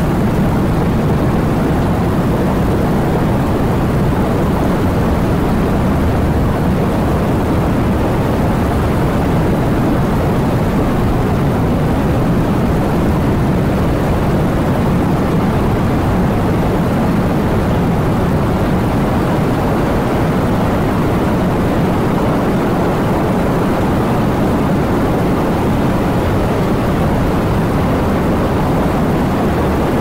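Steady rain: a dense, even noise, heaviest in a low rumble.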